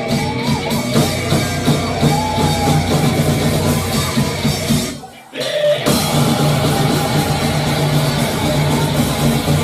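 Live rock band playing with a drum kit. About five seconds in, the band stops dead for less than a second, then comes back in together.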